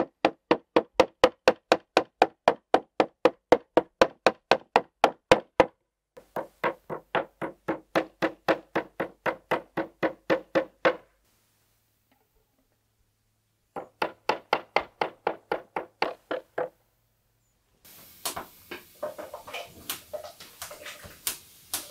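Metal meat mallet pounding pork slices on a wooden cutting board: steady knocks at about four blows a second, in three runs with short pauses between them. Near the end, softer irregular clatter of cubed potatoes being tipped from a plate into a pot.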